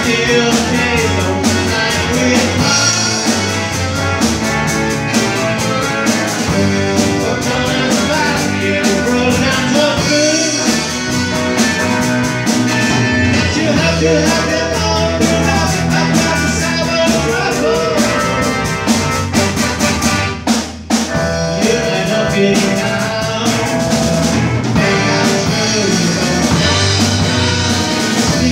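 Live rock band playing a song: a man singing into a microphone over electric guitar and drum kit. The music briefly drops away about two-thirds of the way through, then carries on.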